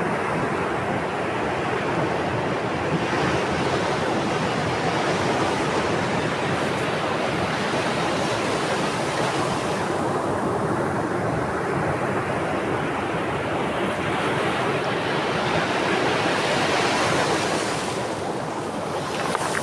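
Ocean waves surging and washing on the shore, a continuous rush that swells and eases twice, each surge lasting several seconds.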